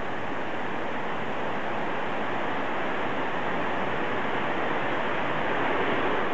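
Steady, even rushing background noise with nothing standing out from it.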